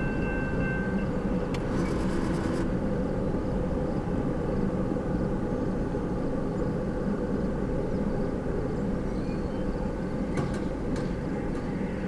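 Railroad crossing bell ringing with a steady tone, cutting off about a second in as the crossing gates begin to clear, over a steady low rumble of the freight train moving away down the line. A few faint clicks come near the end.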